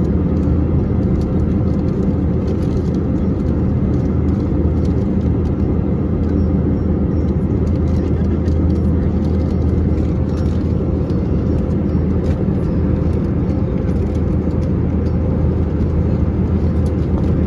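Steady drone of an Airbus A321-200's jet engines and rushing air heard inside the passenger cabin, with a constant low hum underneath.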